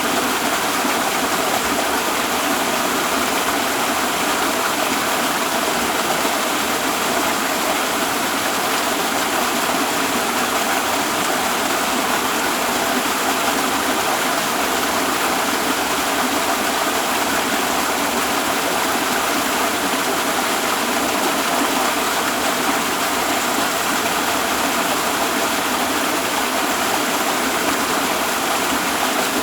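Waterfall: falling water making a steady, unchanging rush of noise.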